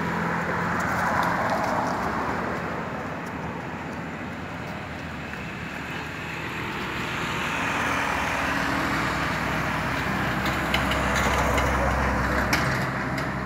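Road traffic passing: one vehicle fades away in the first few seconds, then a minivan comes by close near the end with a low engine and tyre rumble.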